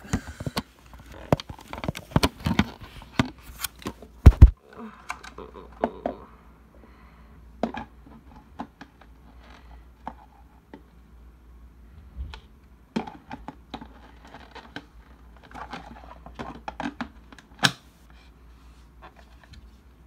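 Plastic clicks, knocks and scrapes as a cordless vacuum's parts are worked off and back on, with two loud knocks about four seconds in. The vacuum motor is not running.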